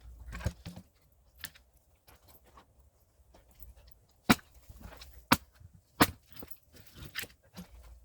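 A hand axe striking and splitting firewood: a couple of lighter knocks, then four loud, sharp cracks of the blade hitting wood in the second half.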